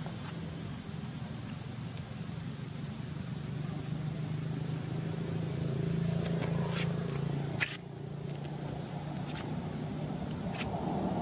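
A steady low engine-like hum, with a few sharp clicks in the second half; after the loudest click, about seven and a half seconds in, the hum briefly drops.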